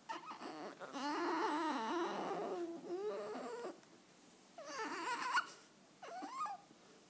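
A high, wavering whining cry with a shaky, bending pitch: one long stretch of about three and a half seconds, then two shorter cries about a second apart.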